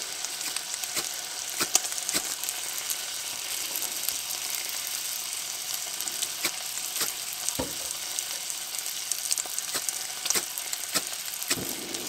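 Bacon and bread frying gently in a pan on low heat, a steady sizzle with scattered crackles and pops.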